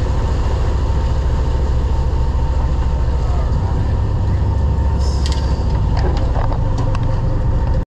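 Party boat's engines running under way, a steady low rumble, with a few short clicks a little past the middle.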